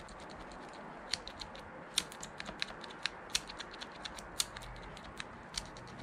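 Small, irregular plastic clicks and ticks as fingers work grease into the Honda VFR800's opened left-hand handlebar switchgear and move its switch parts, over a faint background hiss.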